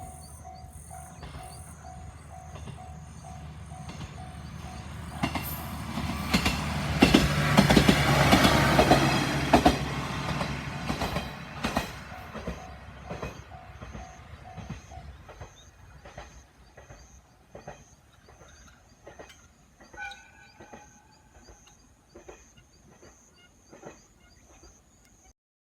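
A Japanese level-crossing bell dings about twice a second while a Tenryu Hamanako Railway diesel railcar passes, its engine and wheels building to a loud rumble with sharp clicks as the wheels cross rail joints. The bell stops about 15 s in, and the wheel clicks thin out and fade as the train goes away.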